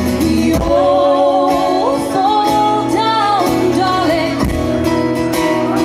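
Live band performance: sung vocals carrying a wavering, held melody over acoustic guitar.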